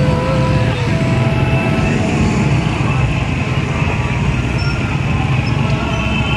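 Dense motorcycle and motor-rickshaw traffic: a loud, steady drone of many small engines running close by.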